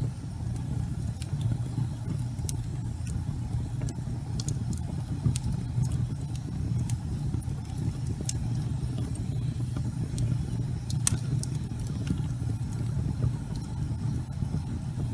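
Logs burning in a fireplace: a steady low rumble of the fire with frequent small crackles and pops, one louder pop about eleven seconds in.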